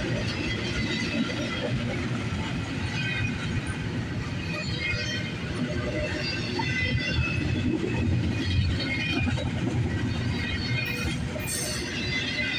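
Intermodal freight train's container cars rolling past on the rails, a steady rumble and clatter with scattered short high-pitched wheel squeals.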